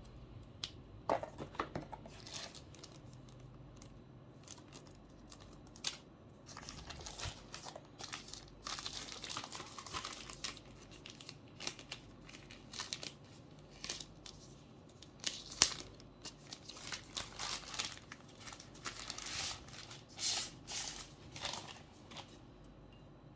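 Keyboard packaging being unwrapped and handled: irregular crinkling and tearing rustles broken by sharp clicks and knocks, one sharp click about two-thirds of the way through the loudest.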